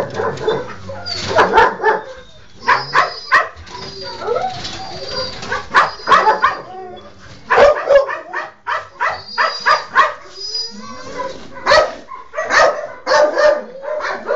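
A dog yelping and whining over and over in distress, short loud cries coming every second or so at an uneven pace, with thin high-pitched whines between them.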